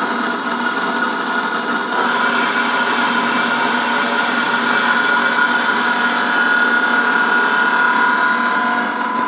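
Manual milling machine's spindle running with an end mill cutting into a wooden test block, a steady whine over the noise of the cut. It gets a little louder about two seconds in.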